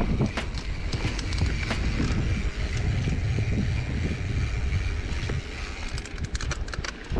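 Mountain bike rolling on a dry dirt singletrack: tyre noise and wind rumbling on the camera microphone, with scattered clicks and rattles from the bike over bumps. Near the end the rumble eases and a quick run of ticking comes through.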